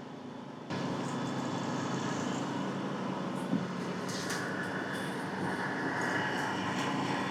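Ship's engine running steadily under way, a continuous drone with a held hum that sets in abruptly under a second in.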